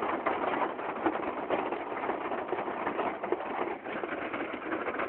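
Heavy rain falling, a steady patter of many small hits.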